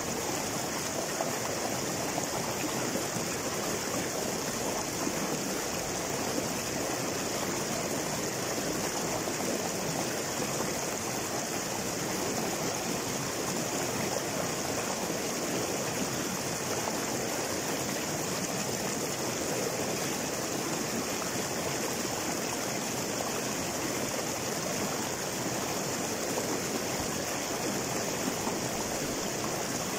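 River water tumbling over and between boulders in small cascades: a steady, even rushing and splashing.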